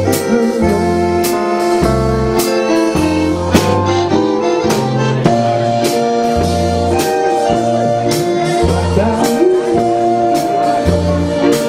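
Live band playing a country ballad: an electronic accordion holds chords over a bass line that changes note about once a second, with guitar and a steady drum beat.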